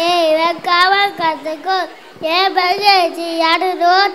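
A young child singing a Tamil song into a microphone: held, wavering notes in a high voice, with a short breath about halfway.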